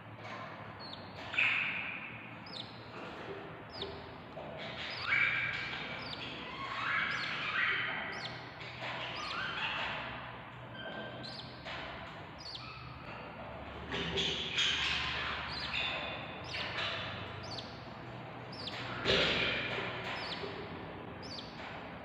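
Budgerigars chirping in the nest box: many short, irregular chirps and chatter, with a few louder bursts and some soft thumps of a bird shifting in the wood shavings.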